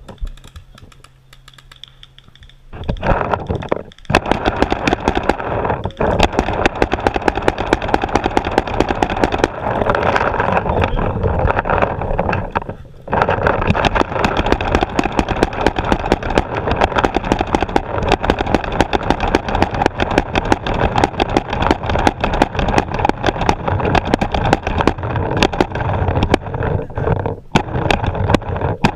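Paintball markers firing fast and without let-up, a dense run of sharp cracks many per second, starting about three seconds in, with short lulls near four, thirteen and twenty-seven seconds.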